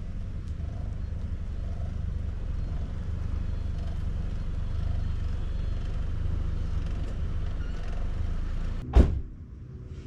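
Steady low road rumble of a van driving. About nine seconds in there is one sharp, loud thump, after which the rumble drops away.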